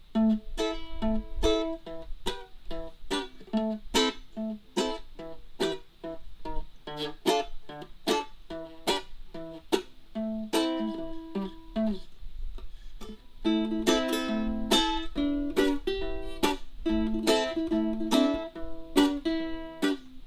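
Ukulele playing a melody of single plucked notes, with the notes coming more thickly and a little louder in the second half.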